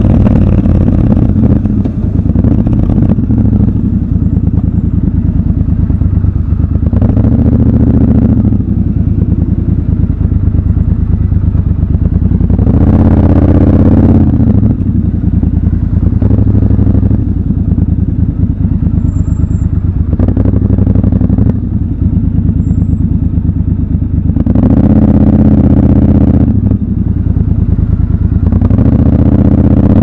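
Triumph Scrambler 1200 XC's parallel-twin engine running in stop-and-go traffic, picking up in several short bursts of throttle about every five seconds, with rising revs near the end as it pulls away.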